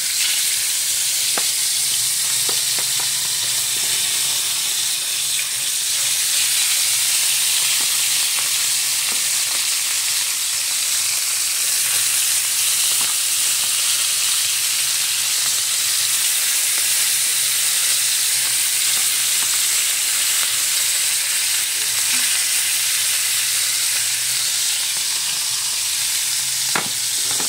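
Small whole fish sizzling as they fry in hot oil in a nonstick pan, a steady hiss throughout, with occasional light clicks.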